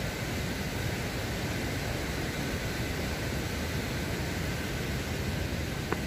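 Steady rushing roar of the Rhine Falls, a broad even noise of falling and churning water with no break in it.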